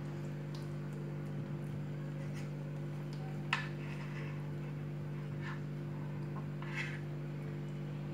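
Steady low electrical hum, with a few faint taps and clicks of a knife and hands handling lamb spleen on a wooden cutting board, the sharpest about three and a half seconds in.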